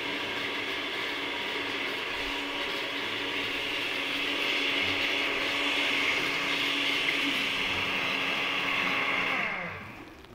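Countertop blender running steadily as it purées a yellow sauce, getting a little louder about four seconds in. Near the end it is switched off, and its motor winds down with a falling pitch.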